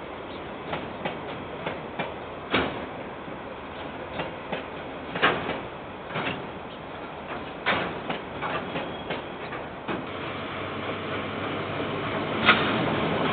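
Container freight train wagons rolling past on the rails, heard through a security camera's microphone, with irregular clanks and knocks from the wagons. From about ten seconds in, a louder, steadily rising rumble of another train approaching, with one sharp clank near the end.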